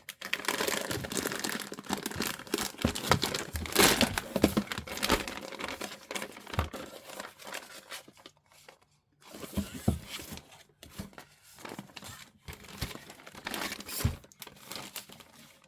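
Thin plastic bags crinkling and rustling as they are handled, in irregular bursts with a couple of short pauses in the second half.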